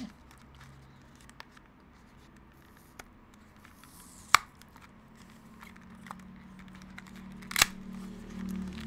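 Clear plastic clamshell case holding two DDR2 laptop memory modules being pried open by hand: a few sharp plastic clicks and snaps, the loudest about four seconds in and again near the end, with faint rustling and small ticks between, over a low steady hum.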